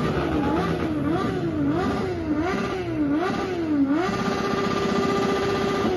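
Motorcycle engine revved up and down in quick, even blips, then held at high revs for about two seconds before the revs start to fall away.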